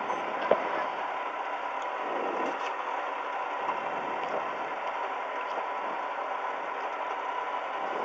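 Historic Ford Escort rally car's engine idling steadily while stationary, heard from inside the cabin, with a single sharp click about half a second in.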